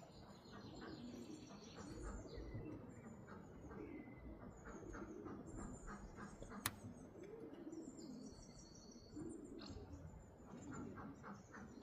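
Faint cooing of pigeons around the loft, with higher chirps of small birds over it and a single sharp click about two-thirds of the way through.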